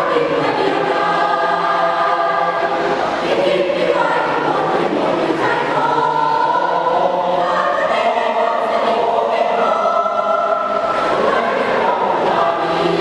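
School choir singing in harmony, with long held chords that change every second or two.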